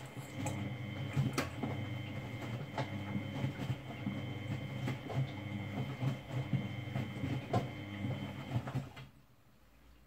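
Miele Novotronic W971 washing machine turning its drum in a wash cycle: a steady motor hum with a faint high whine and the light knocks of tumbling laundry. The drum stops about nine seconds in.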